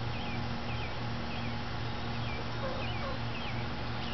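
Faint high chirps from a small animal, repeating about twice a second, over a steady low hum.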